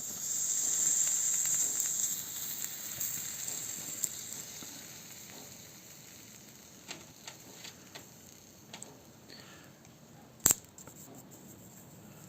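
A sizzling hiss, loudest in the first two seconds and then fading away, followed by scattered small clicks and one sharp click about ten seconds in.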